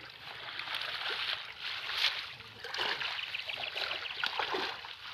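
Water sloshing and trickling around a small fishing boat, with scattered light knocks.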